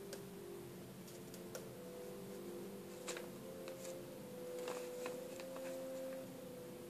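Faint scattered clicks and rustles of a kitten scrabbling in a woven wicker basket, its claws catching on the weave, busiest about three seconds in and again near five seconds. A steady faint hum runs underneath.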